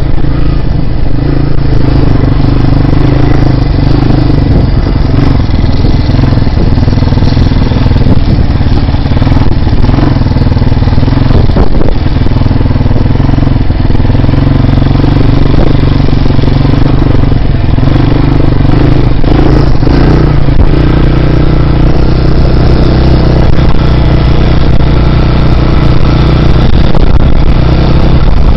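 Loud dirt bike engine running as the bike rides along, its pitch shifting up and down a few times with the throttle.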